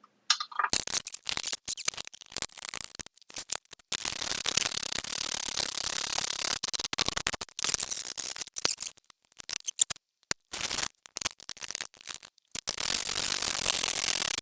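Ratchet spanner clicking in runs as a nut is wound along a threaded rod, drawing new bearings into a motorcycle swing arm in place of a press, with metal-on-metal clinks between the runs.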